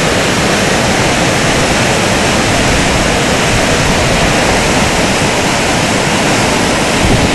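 Swollen floodwater rushing through foaming whitewater rapids, a loud, steady, unbroken rush.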